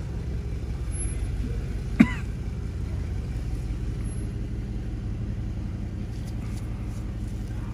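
Steady low background rumble, with a sharp click and a short cough-like voice sound about two seconds in.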